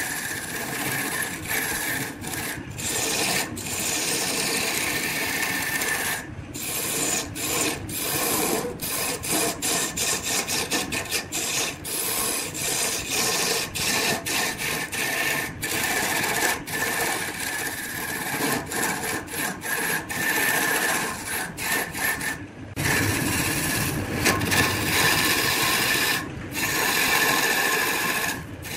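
Hand-held turning tool cutting a large spinning wood blank on a lathe: a continuous rough shaving and scraping of steel on wood as chips are thrown off, broken by a few brief gaps.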